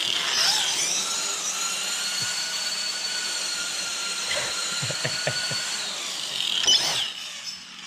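High-pitched whine of a Holmes Hobbies Revolver brushless motor driving an Axial SCX10 II RC crawler. The pitch rises about a second in, holds steady, and falls off near six seconds, with a short louder burst near seven seconds. On stock gearing the motor spins very fast while the truck moves slowly.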